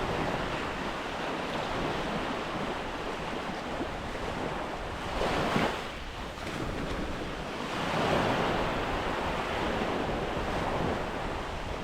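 Surf washing onto the beach with wind buffeting the microphone; a wave swells up about five seconds in and another about eight seconds in.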